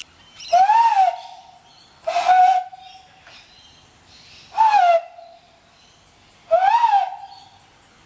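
Bird call imitation blown through a man's cupped hands: four hooting notes, each under a second, spaced roughly two seconds apart. Three rise and fall in pitch; the second holds one flat pitch with more breath noise.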